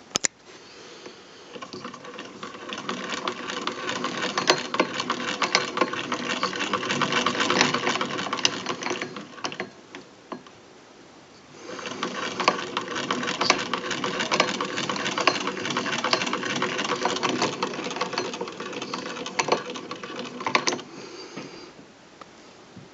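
Vintage 1920s Jones hand-crank sewing machine being cranked, its mechanism running with fast rattling clicks in two spells of about eight and nine seconds with a short pause between. A sharp click comes right at the start.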